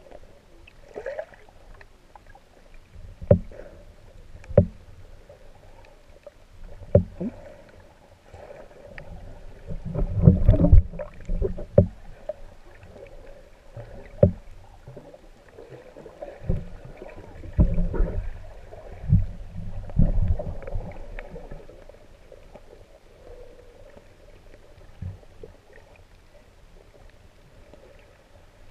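Muffled underwater sound picked up by a camera in a waterproof housing: water swishing and irregular knocks and thumps from the swimmer's movements, louder in two stretches about a third and two thirds of the way through, over a faint steady hum.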